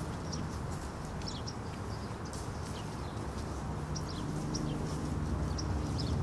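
Small birds chirping in short repeated notes over a steady low rumble, with a low hum coming in about four seconds in.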